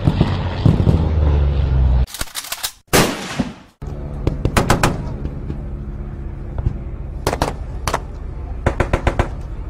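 Short bursts of rapid gunfire, like a machine gun, over a low pulsing drone. An earlier steady drone cuts off abruptly about two seconds in.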